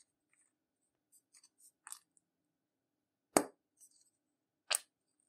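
Plastic hand cream tube being squeezed out by hand: light ticks and crackles, then two short sharp spurts about a second and a half apart, the first the louder.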